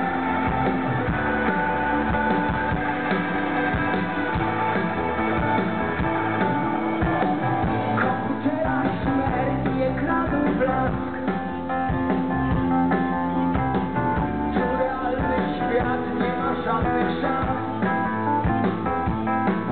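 Rock band playing live, electric guitars to the fore over bass and drums, at a steady level throughout.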